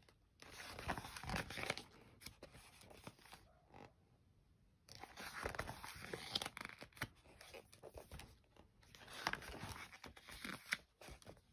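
Glossy pages of a large printed catalog being turned and smoothed by hand: faint paper rustling in a few spells, with a quiet gap of a couple of seconds near the start.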